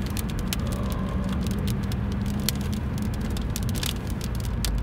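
Steady engine and road drone inside a moving car's cabin, with many scattered light ticks of raindrops hitting the windshield.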